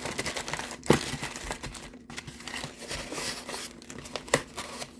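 Crinkly packaging rustling and crackling as it is handled and pulled open, with sharp snaps about a second in and again near the end.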